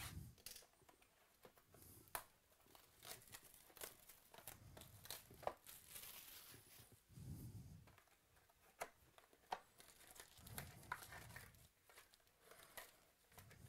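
Plastic shrink wrap on a sealed trading-card box being slit and torn off, crinkling, with scattered small clicks and taps as the cardboard lid is opened and the foil card packs are pulled out.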